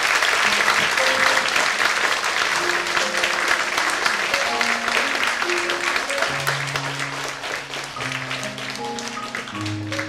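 Audience applauding after a live song while the keyboard plays slow, sustained closing notes. The applause thins out toward the end into scattered single claps.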